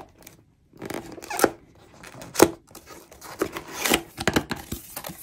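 Paperboard box being opened by hand: the tuck-in end flap is worked loose and pulled out, with rubbing and scraping of the board and a string of sharp snaps, the loudest about two and a half seconds in.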